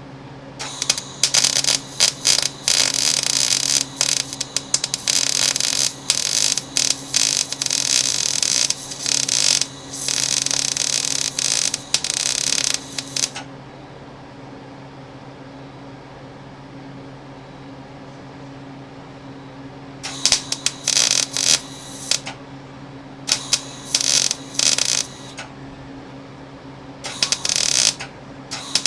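MIG welder arc crackling in bursts: one long weld of about thirteen seconds, then several short tack welds of a second or two near the end, with a steady low hum underneath. The welds attach the heat-shield tabs to a replacement catalytic converter.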